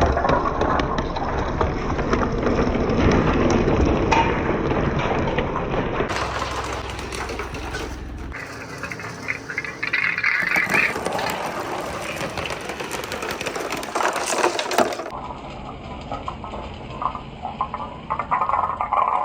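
Marbles and hard acrylic balls rolling and clattering down a wooden marble run, a continuous rumble with scattered clicks as they knock against the track and each other. The sound changes abruptly a few times.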